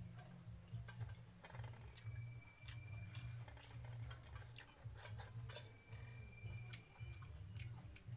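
Quiet eating sounds: fingers mixing watered rice in steel bowls and chewing, a scatter of small clicks and smacks over a low steady hum.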